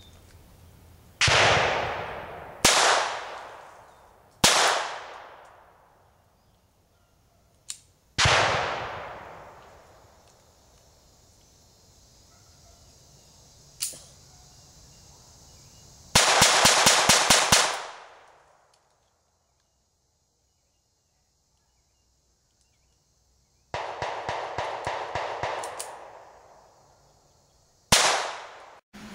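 Star Type F .22 LR semi-automatic pistol being test-fired: four single shots spread over the first eight seconds, each trailing off in a long echo, then a quick string of about ten shots. After a few seconds of dead silence comes a second, somewhat quieter rapid string, and a last single shot near the end.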